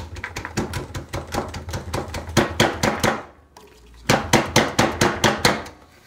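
A plastic sieve being shaken and knocked in quick rhythmic strokes, about four or five a second, to sift ground herb powder. The strokes stop for about a second just past halfway, then start again.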